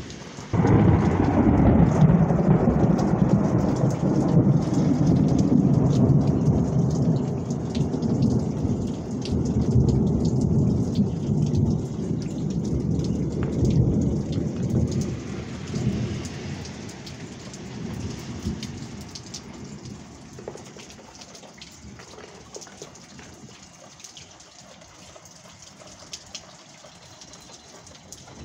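A loud clap of thunder breaks suddenly about half a second in, then rolls on as a deep rumble that slowly dies away over the next fifteen seconds or so. Steady rain falls throughout.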